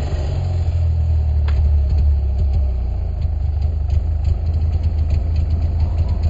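Snowmobile engine idling, a steady low rumble.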